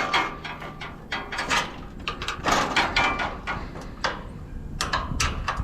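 Irregular knocks, clanks and rattles of scrap appliances being shifted into place in a packed cargo load, with a brief squeak in the middle.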